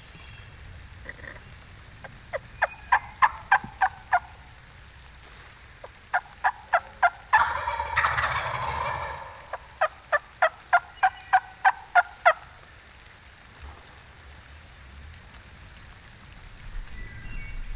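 Wild turkey calling: runs of sharp evenly spaced yelps, about four a second, with a gobbler's loud rattling gobble of about two seconds cutting in halfway through.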